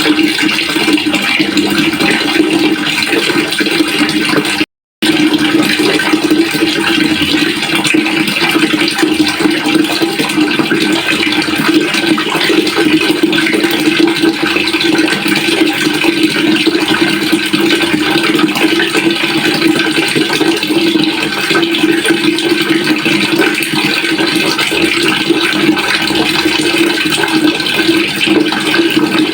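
Water flowing steadily into a pail, a continuous splashing rush with a steady low note running through it. It breaks off to silence for a split second about five seconds in.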